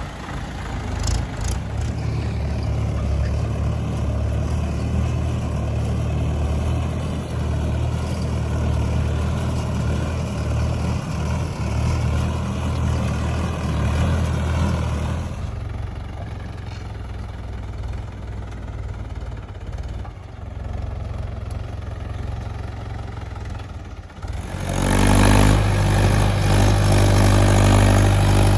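Heavy diesel engines of a backhoe loader and tractor at work, running steadily. The sound changes suddenly about halfway through and again near the end, where the engine becomes louder and deeper.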